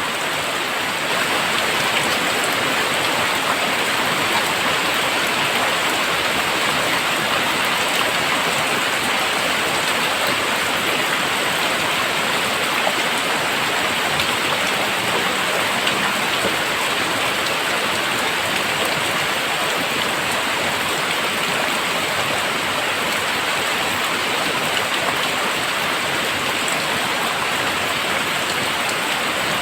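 Very heavy rain pouring steadily, an even hiss of countless drops striking surfaces, a little heavier from about a second in.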